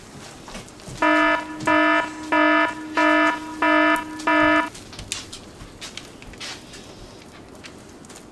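An electronic kitchen beeper sounding six even beeps in a row, about one and a half a second, on a low buzzy tone; it starts about a second in and stops after about four seconds.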